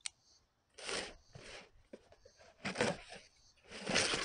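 A sharp click, then several scraping, noisy strokes of a knife slitting the packing tape on a cardboard box as the box is handled, the loudest near the end.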